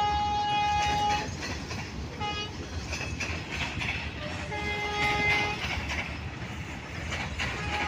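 Freight train of hopper wagons rumbling past on the track, with a horn sounding over it: a long blast that stops about a second in, a short toot about two seconds in, a blast of about a second near the middle, and another starting near the end.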